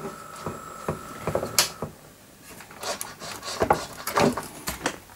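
Clicks, knocks and rattles of a graphics card being handled and reseated in an expansion slot of a bare Pentium II mainboard. A steady high-pitched whine cuts off suddenly a little under two seconds in.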